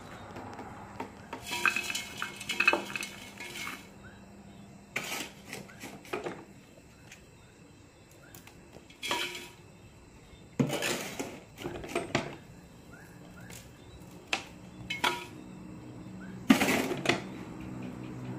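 Metal spade scooping a gritty potting mix of sand, garden soil and organic fertiliser and tipping it into a pot, filling it for planting: separate bursts of scraping and rattling pours, a few seconds apart.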